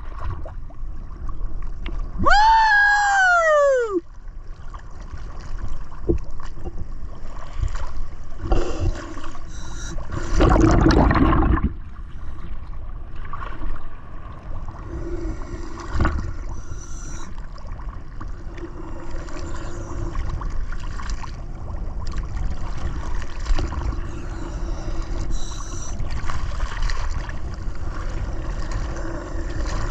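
Gurgling water and bubbling under a steady hum, with a loud rush of bubbles a little before the middle. About two seconds in, a single pitched, voice-like tone rises and falls for under two seconds.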